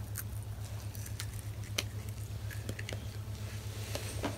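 Someone chewing dried edible crickets: scattered faint crunches and clicks, over a steady low hum.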